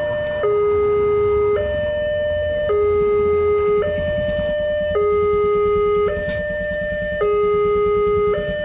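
Electronic railway level-crossing warning alarm of a Wantech crossing system, sounding a steady two-tone alternation of a low and a higher note, each held about a second. It warns of an approaching train while the crossing's barrier arms are coming down.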